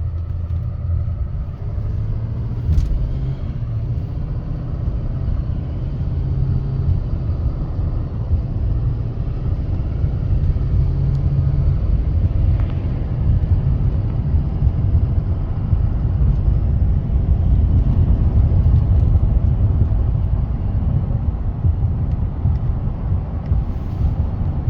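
Heard from inside the cab, a 6.6 L Duramax L5P turbo-diesel on its stock air intake accelerates at normal throttle: a low rumble with road noise that slowly grows louder as speed builds, the engine note stepping a few times as the transmission shifts up. The rumble is not very loud.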